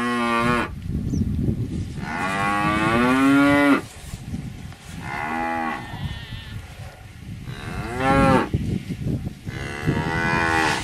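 Cattle mooing: about five separate moos, including one long moo of nearly two seconds a couple of seconds in, followed by shorter moos every two to three seconds.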